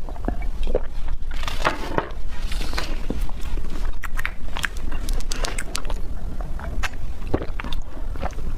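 Close-miked eating and drinking mouth sounds: swallowing in the first few seconds, then wet chewing clicks and smacks.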